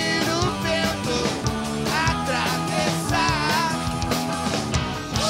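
Live rock band playing, with a man singing lead into a handheld microphone over drums and band.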